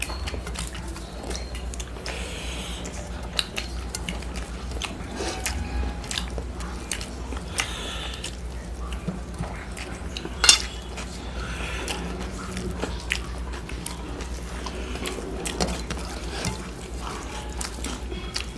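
Fingers mixing and scooping rice and curry on stainless steel plates: irregular soft scrapes, taps and clicks of hands against the metal, with one sharper clink about ten seconds in.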